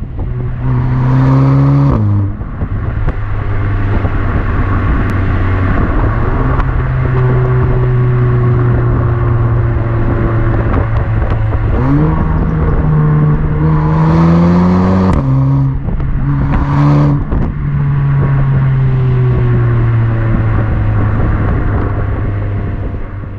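Audi TT 8S 2.0 TFSI turbocharged four-cylinder driving at speed, heard from its exhaust under the rear bumper over road and wind noise. The revs climb under acceleration and drop at quick gear shifts through the DSG gearbox, once near the start and twice more past the middle, with the engine holding steady or slowly falling in between.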